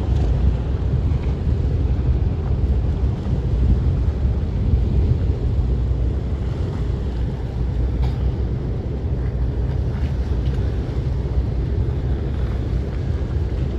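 Ferry under way: a steady low rumble of engine and water noise, with wind buffeting the microphone.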